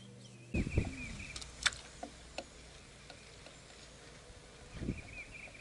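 Handling noises from fishing tackle: low thumps about half a second in and again near the end, and a few sharp ticks in between. A bird chirps briefly twice.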